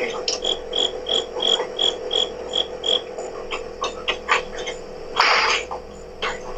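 A cricket chirping in a regular series of short, high chirps, about three a second, heard through a security camera's microphone; the chirping stops about three seconds in. Scattered clicks and a short rushing scrape about five seconds in.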